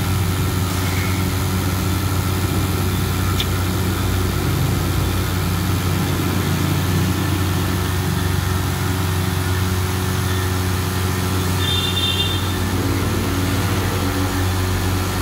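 Dekton DK 3930 oil-free 2 HP air compressor running steadily, its twin-cylinder pump filling the 30-litre tank, with an even low hum throughout. The tank is nearly up to pressure.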